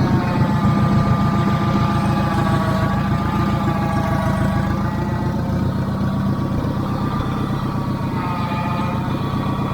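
Heavy machine's engine running steadily, with a whine above it that wavers slightly in pitch.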